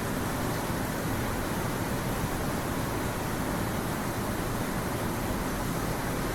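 Steady hiss of background noise, even and unchanging, with no distinct events.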